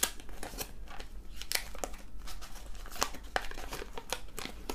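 Paper wrapper of a 1991 Fleer basketball card pack being torn open and crinkled by hand, a run of irregular sharp crackles and rips.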